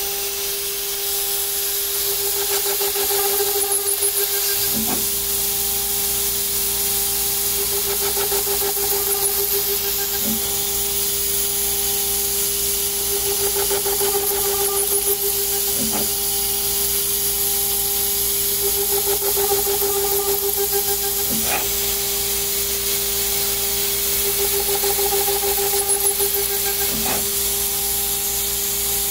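CNC router spindle running with a steady whine while a small drill bit drills a row of holes into an aluminium plate, with a short sharp sound about every five and a half seconds as each new hole is started. A steady hiss from the compressed-air blast on the cutter runs underneath.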